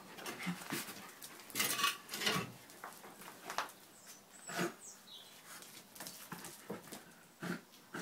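A Jack Russell terrier sniffing hard, nose to the ground, in short irregular bursts as it hunts for a rat by scent.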